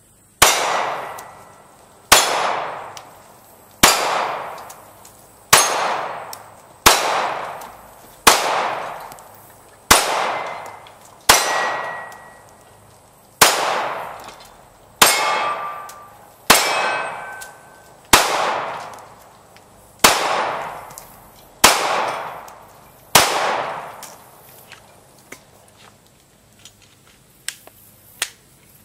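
Glock 19 Gen 4 9mm pistol firing Tula 115-grain steel-cased ammunition: about fifteen single shots at a steady slow pace, roughly one every one and a half to two seconds, each with a long fading tail. A few faint clicks follow after the last shot.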